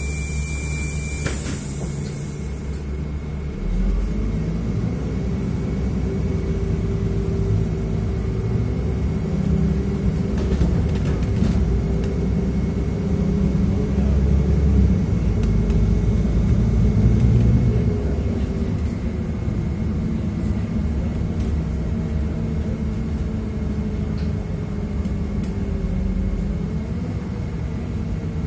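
City bus engine and road noise heard from inside the passenger cabin: a steady low rumble with a faint whine that drifts slightly in pitch, growing louder about four seconds in.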